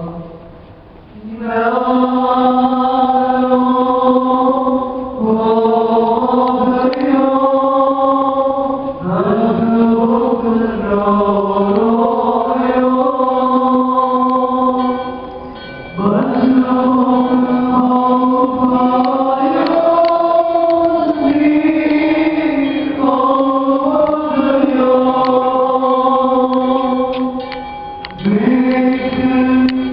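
Male voices chanting a church liturgical hymn in unison, in long held notes grouped into phrases with short breaks between them.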